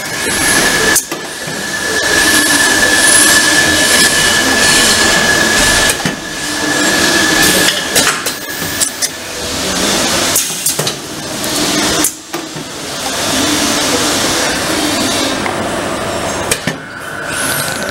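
Manual foil sealing and cutting machine running under the press: a steady rushing noise with a high steady tone through the first half and again near the end, broken by a few clacks of the mechanism.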